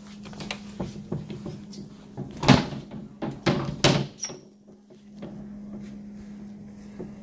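A few sharp knocks and thumps, the loudest about two and a half seconds in and two more about a second later, over a steady low hum.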